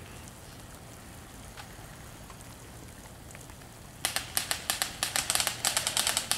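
Airsoft gun firing a rapid string of sharp clacks, about eight shots a second, starting about four seconds in after a few seconds of low background hiss.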